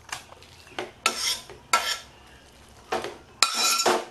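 A spatula scraping cooked cabbage-and-prawn curry out of a kadai into a steel bowl. It makes a string of separate metal-on-metal scrapes, and the last, about three and a half seconds in, is the loudest, with a ringing metallic edge.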